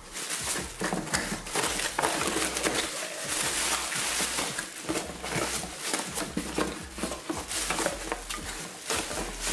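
Clear plastic packaging wrap crinkling and rustling as it is handled and pulled out of a cardboard box, a dense crackle of many small snaps throughout.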